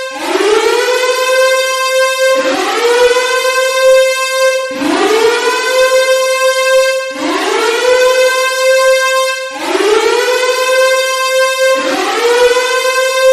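Civil defense (nuclear warning) siren sounding loud. Over and over, about every two and a half seconds, it winds up quickly from a low pitch to a steady high tone and then drops back.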